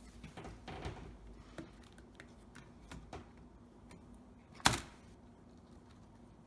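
Scattered light clicks and taps from hands and small tools working on a laptop's plastic case and screws, with one sharp, loud click about four and a half seconds in.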